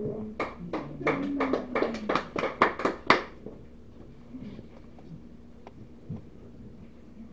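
A small group clapping briefly, a dozen or so irregular claps, just as a sung song's last note fades; the clapping stops about three seconds in.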